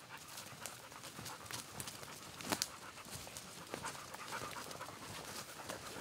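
A person and a dog walking through forest undergrowth: leaves rustling and twigs crackling underfoot, with one sharp snap about two and a half seconds in, and a dog panting.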